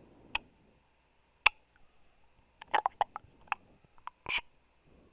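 Mouth clicks and pops made with the tongue and lips: a pop about half a second in, a louder one a second later, a quick run of clicks in the middle, and a longer wet smack near the end.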